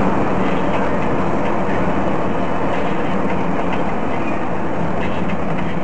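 Steady road noise of a car driving at highway speed, tyre and wind noise picked up by a dashcam.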